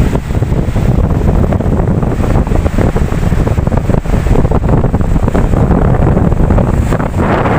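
Ocean waves and surf with heavy wind buffeting on the microphone, a constant rumbling rush. Near the end a wave washes in with a brighter hiss.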